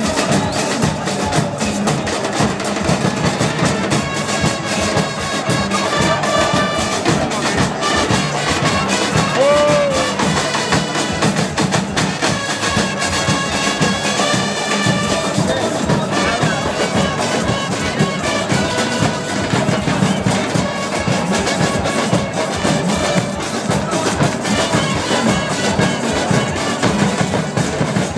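Supporters' band in the stands: bass drums beating a fast, steady rhythm while trumpets play a repeating tune over it, with crowd voices.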